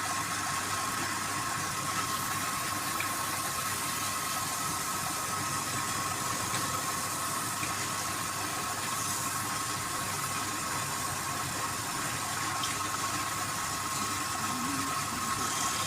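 Wood lathe running steadily: a constant whine over an even hiss.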